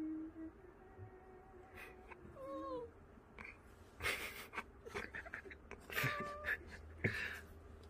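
Cat chewing and gnawing a silver vine stick: a run of short crackling clicks and a few brief rough bursts, mixed with small mewing murmurs, one bending in pitch about two and a half seconds in and another short mew around six seconds.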